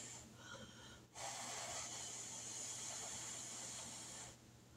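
A person breathing out around a hot mouthful of chicken and dumplings as she chews, one long, faint, airy breath starting about a second in.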